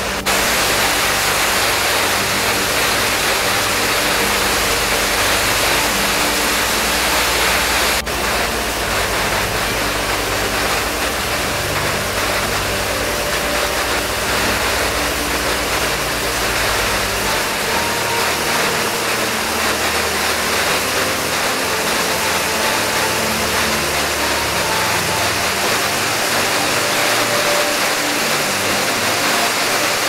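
Steady, loud rush of a waterfall tumbling over tufa limestone.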